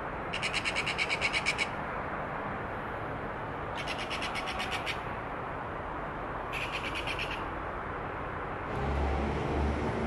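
Eurasian magpie chattering: three bursts of fast, harsh rattles, the first the loudest. A low rumble from an approaching electric train comes in near the end.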